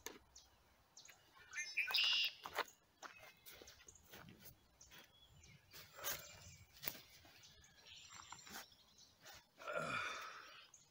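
Scattered clicks and rustles of a landing net and unhooking mat being handled while a carp is dealt with on the bank, with birds chirping. Near the end comes a short grunt that falls in pitch.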